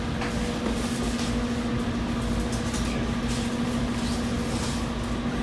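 A steady machine hum with a fixed pitch, with a few faint light clicks and rustles over it.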